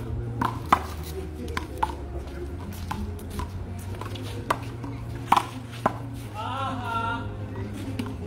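Rubber handball smacked by bare hands and hitting a concrete wall and court during a rally: a run of sharp smacks at irregular intervals.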